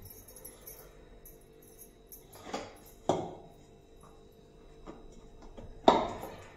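Stainless-steel bowl and kitchen utensils clanking against the counter: two clanks a little over half a second apart, then a louder one near the end, each with a short metallic ring.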